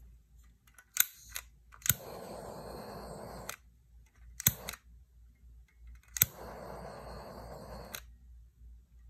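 Small handheld torch clicked on twice, each time hissing steadily for under two seconds before clicking off, passed over wet poured acrylic paint to pop surface bubbles. Each burst is preceded by an extra click.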